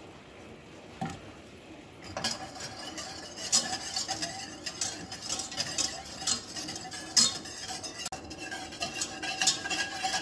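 A utensil stirring a simmering red wine and butter sauce in a stainless steel pot, clicking and scraping against the pot's sides over a bubbling sizzle. The stirring starts about two seconds in, with frequent clinks.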